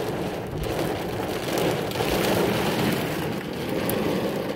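Heavy rain beating steadily on a truck's roof and windshield, heard from inside the cab during a severe thunderstorm.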